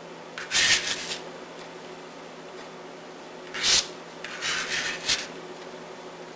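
Chopped hard-boiled egg being scraped together across a plastic cutting mat: three short rasping scrapes, the last one longer and ending in a sharp scratch.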